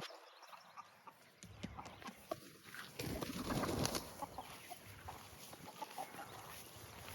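Chickens clucking during a roundup, with a louder scuffle of rustling, about a second long, starting about three seconds in.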